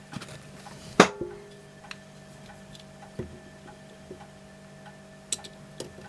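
Light metallic clicks and taps from small workshop tools being handled, irregular rather than a steady tick. The loudest is a sharp clink with a brief ring about a second in, over a faint steady hum.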